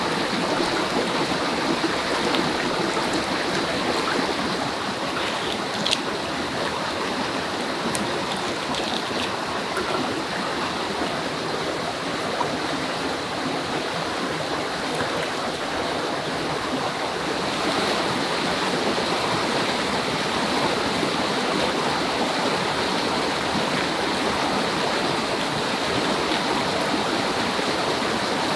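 Shallow forest stream running over rocks, a steady rush of water, with a single brief click about six seconds in.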